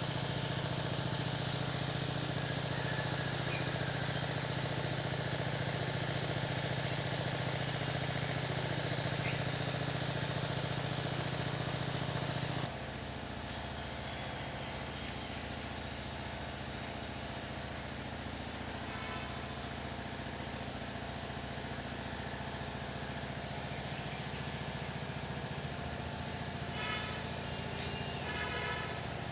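A steady engine hum under background noise, dropping suddenly in level a little under halfway through; a few short pitched chirps near the end.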